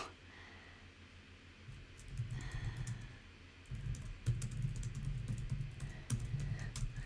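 Typing on a computer keyboard: quick key clicks with soft thuds, in two runs with a short pause about three seconds in.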